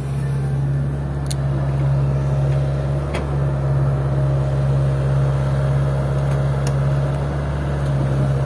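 Diesel engines of a Hitachi excavator and an Isuzu Elf dump truck running steadily with an even low hum, with a few sharp clicks.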